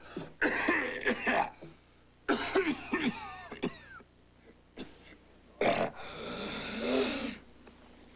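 A man coughing in several hacking fits, the cough of a man suffering from tuberculosis.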